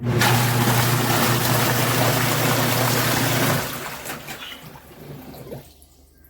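Portable twin-tub washing machine running with its tub full, water churning over a steady motor hum. The hum cuts off about three and a half seconds in, and the water sloshes and trickles as it settles.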